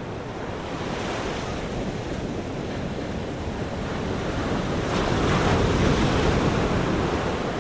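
Sea waves washing with wind, a steady rushing noise that swells slowly to a peak about six seconds in and then eases off.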